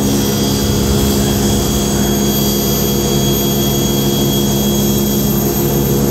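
Steady, loud drone of workshop machinery: a low hum with a high whine on top, running without change.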